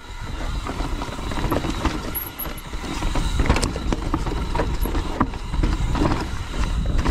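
Mountain bike riding down a rough, rocky trail: an irregular clatter of knocks as the tyres, suspension and frame hit rocks, over a steady low rumble.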